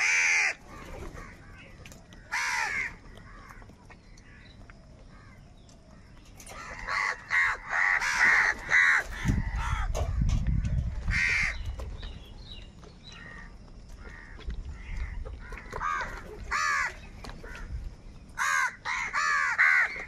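House crows cawing: harsh calls, some single and some in quick runs, thickest in the middle and near the end. A low rumble sits under the calls in the middle.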